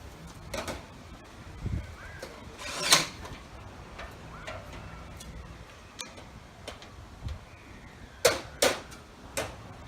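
Scattered knocks and clicks from gutter and downspout installation work, the loudest about three seconds in and two sharp ones close together near the end.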